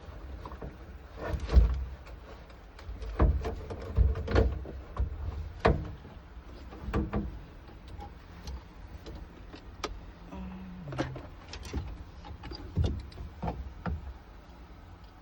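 Irregular clicks and knocks of hands and tools working on a car door and its power-window parts, the loudest knock about a second and a half in.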